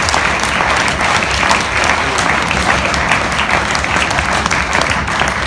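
Audience applauding: a steady, dense clatter of many hands clapping.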